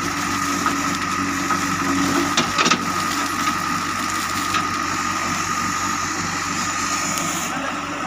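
JCB 3DX backhoe loader's diesel engine running steadily under hydraulic load as the backhoe bucket digs and lifts soil out of the pit, with a cluster of sharp knocks about two and a half seconds in as the bucket scrapes against the soil.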